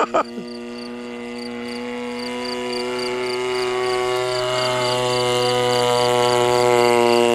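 RCGF 26cc single-cylinder two-stroke petrol engine of a model Pitts Special biplane running steadily in flight, growing louder as the plane comes closer.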